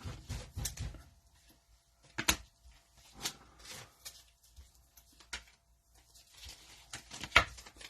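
Trading cards and their cello-pack wrappers being handled: scattered soft clicks and rustles as cards are slid and flipped through, a few seconds apart.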